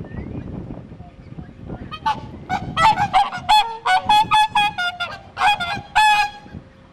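Whooper swan giving a rapid series of about a dozen loud, short calls, two to three a second, starting about two seconds in.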